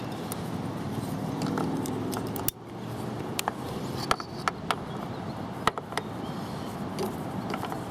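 Wind rushing over the microphone, with scattered small sharp clicks and ticks from small metal parts being handled. The wind noise drops out suddenly for a moment about two and a half seconds in.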